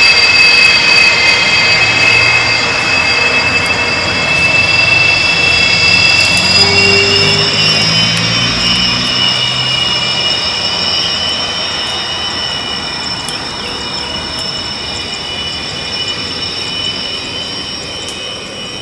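Twin turbofan engines of a two-seat Sukhoi Flanker fighter running as it taxis on the runway: a steady high-pitched whine over a low rumble. The whine rises a little in pitch partway through, then fades steadily as the jet moves away.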